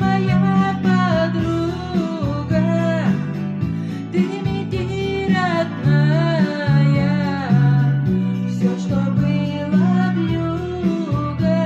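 A song: a voice singing a wavering melody over a plucked acoustic guitar accompaniment.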